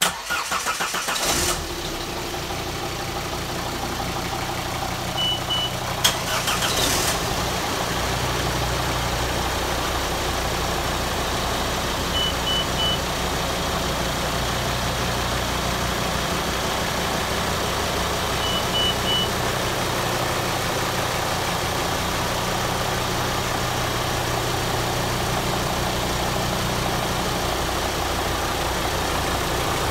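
Twin Volvo Penta inboard marine engines cold-started: cranking catches at once, a second burst of starting noise comes about six seconds in, and the engines then idle steadily. A few short, high beeps sound three times over the idle.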